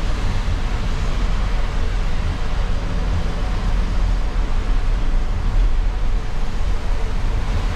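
Steady low rumble of engine and road noise from a Mercedes-Benz OC500RF coach under way, heard inside the cabin.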